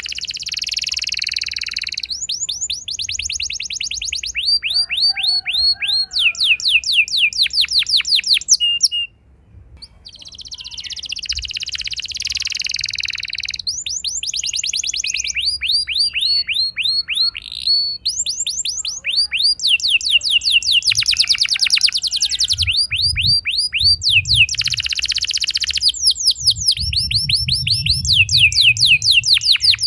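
Canary singing long rolling trills: phrase after phrase of fast, repeated high notes, each run a different note, almost without a break except one short pause about nine seconds in.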